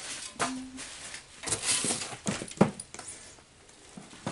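Cardboard box and packing material being handled: irregular rustles, scrapes and knocks, with a sharp knock about two and a half seconds in.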